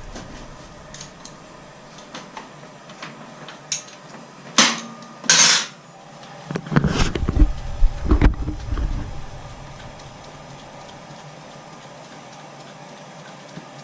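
Metal hand tools clinking and knocking during motorcycle chain work: scattered light clicks, two loud clanks about four and a half and five and a half seconds in, then a run of dull knocks from about seven to nine seconds in.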